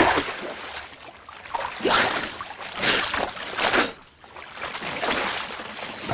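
A swimmer splashing through river water with strong arm strokes. Louder splashes come about 2, 3 and nearly 4 seconds in, and softer stroke splashing follows.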